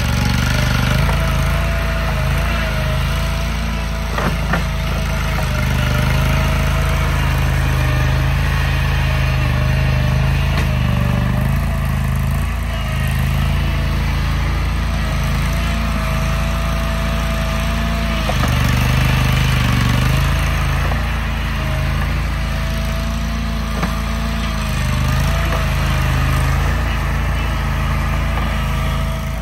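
An engine running steadily, with a low hum and a thin wavering whine above it.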